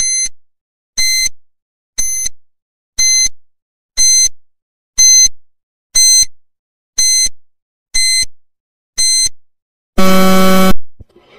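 Countdown timer sound effect: ten short, high beeps once a second, each fading quickly, then a longer, lower buzzer near the end signalling that the time is up.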